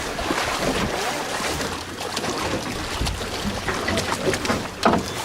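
Wind on the microphone over the steady noise of the sea around a boat, with several sharp knocks from tackle or the deck in the second half.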